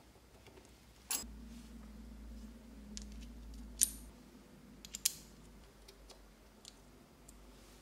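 Small aluminium model-kit parts clicking and clinking as they are handled and a hex key turns their screws: a few sharp, light clicks, the loudest about a third and two-thirds of the way through. A faint low hum runs underneath in the first half.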